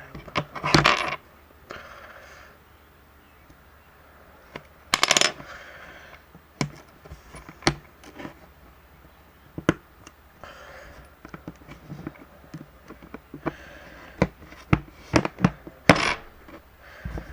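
Scattered sharp clicks and small metallic taps of small tools and tiny phone parts being handled and set down on a work surface, with a few louder handling rustles about a second in, around five seconds and near the end.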